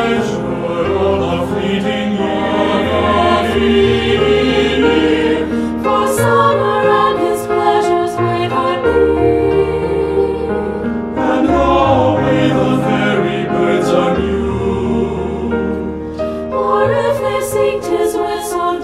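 Four-part mixed (SATB) choir singing a slow, expressive piece with piano accompaniment, in long phrases.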